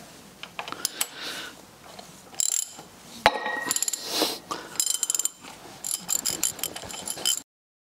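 A ratchet wrench on the crankshaft pulley bolt of a Ford Essex V6 clicks in short rapid runs, with knocks of metal tools, as the engine is turned over by hand to work the fuel pump. The sound cuts off suddenly near the end.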